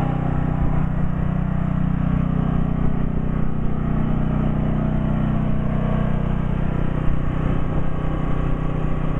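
Generator engine running steadily and loudly at a constant pitch, powering the house during a power outage.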